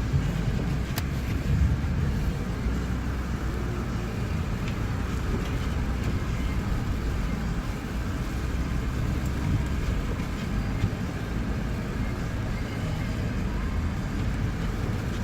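A car driving on snowy roads: a steady low rumble of engine and tyre noise.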